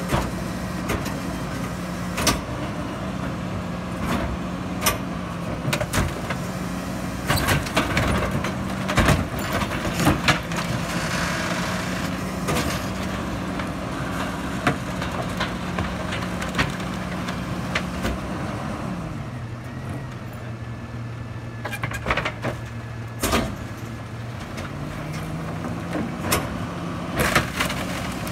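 Rear-loader garbage truck engine running steadily at a raised idle, dropping to a lower idle a little past the middle and climbing back up a few seconds later. Wooden furniture knocks and cracks repeatedly as it is pushed and thrown into the hopper.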